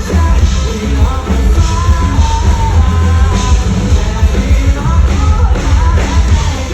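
Live rock band playing, loud, with heavy bass and drums under a sung melody.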